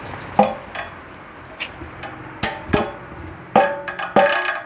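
Removed Royal Enfield Thunderbird X fuel tank clanking as it is handled: about eight sharp, irregular knocks, each with a short metallic ring, the bell-like 'ton ton' the owner hears from the tank. He believes a broken water-drain pipe inside the tank is striking its walls.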